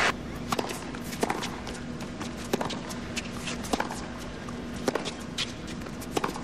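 Tennis serve and baseline rally on a hard court: sharp racket-on-ball strikes about every second and a quarter, with footsteps and shoe scuffs on the court between them.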